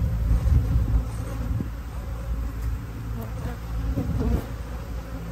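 Honey bees buzzing in a steady, low hum around an opened hive.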